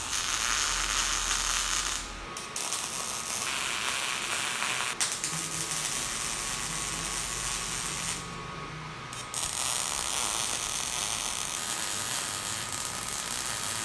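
MIG welding arc crackling steadily as angle iron and steel sheet are welded. It stops twice: a short break about two seconds in, and a break of about a second later on.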